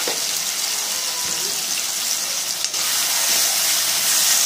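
Onions, tomatoes and spices steadily sizzling in hot oil in a kadai; in the last second or so a metal slotted spatula stirs the masala and the frying grows a little louder.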